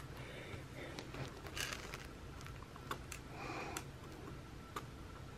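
Faint clicks and short soft rustles of a fingernail picking at a paper sticker sheet, trying to lift stickers that won't come off their backing.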